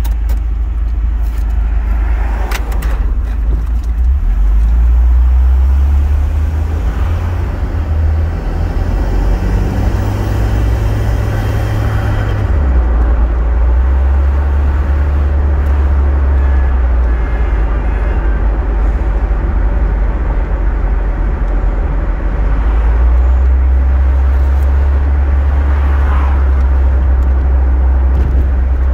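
Volvo 940 turbo's turbocharged four-cylinder engine and road noise heard from inside the cabin as the car pulls away and drives on, the low engine note shifting in pitch several times.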